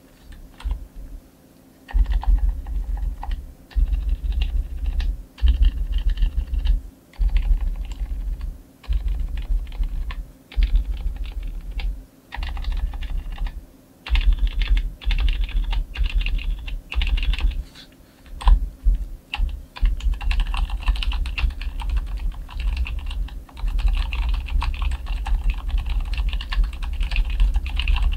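Typing on a Cherry MX Board 3.0S mechanical keyboard with Cherry MX Silent Red (linear, dampened) switches: runs of rapid keystrokes with short pauses, turning into continuous fast typing from about twenty seconds in. The keystrokes sound low and soft, with lubricated stabilizers and almost no spring noise.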